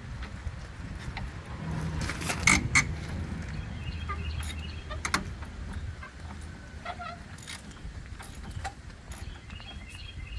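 Sharp metallic clinks and knocks of hand tools and metal parts, two close together about two and a half seconds in and another about five seconds in, over a low steady rumble.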